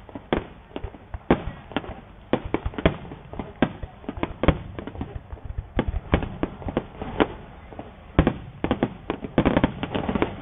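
Aerial firework shells bursting in quick, irregular succession: a run of sharp bangs, several a second, coming thickest near the end.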